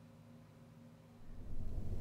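Near silence with a faint steady hum, then, a little over a second in, low wind rumble on the microphone comes in and grows louder.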